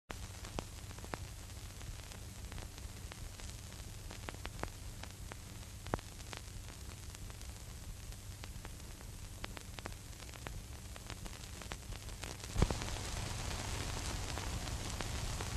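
Surface noise of an old optical film soundtrack with no music yet: a steady hiss over a low hum, with scattered clicks and pops. One louder pop comes about three-quarters of the way in, and after it the hiss is a little louder.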